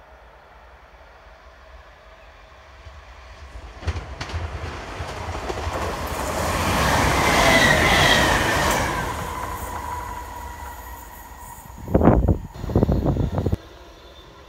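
A ScotRail electric multiple-unit train passes at speed. Its rumble and rail noise swell to a peak about halfway, with a thin high squeal over it, then fade away. Near the end come two short bursts of loud low rumble.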